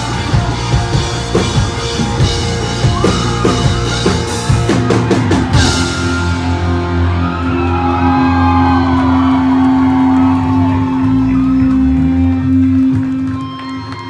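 Rock band playing live with electric guitars and drums. The drums and cymbals stop about six seconds in, leaving guitars holding steady ringing notes with bending notes above them, as the song comes to its end.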